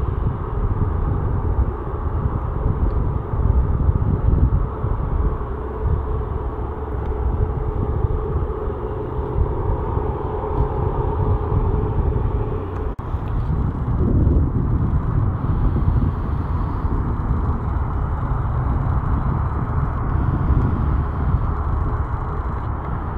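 Boeing 737-8 MAX's CFM LEAP-1B jet engines at taxi idle, heard from across the airfield as a steady rumble with a faint hum. The sound drops out briefly about halfway through.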